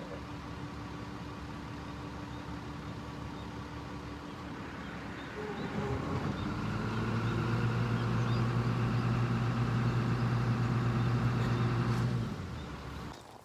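A motor vehicle's engine running steadily nearby, its drone growing louder about halfway through and cutting off shortly before the end.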